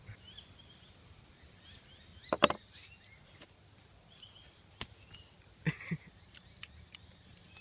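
A few sharp knocks and taps on a wooden board as a knife and cooked fish fillets are handled, the loudest a quick double knock about two and a half seconds in. Faint bird chirps in the background.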